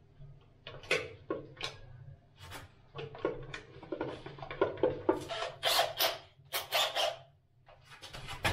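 Hands handling and fitting a small plastic light fixture and its cables against a wall near the ceiling: irregular clicks, taps and scrapes of plastic, a few at first and then a busy stretch in the middle.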